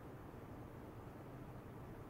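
Faint steady room tone: a low hum under a soft hiss, with no clicks or changes.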